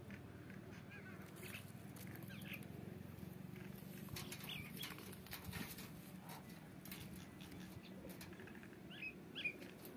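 Rose-ringed parakeet giving a few short, soft chirps, about two and a half seconds in, around four and a half seconds in and twice near the end, among faint scattered clicks, over a low steady hum.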